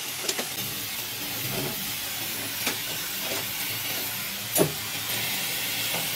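Oxy-fuel cutting torch hissing steadily, with a few sharp metallic knocks, the loudest about four and a half seconds in, as a hand tool strikes the freshly cut steel plate pieces.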